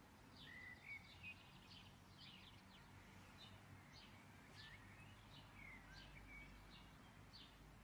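Near silence, with faint bird chirps and short whistled notes scattered through it over a faint low hum.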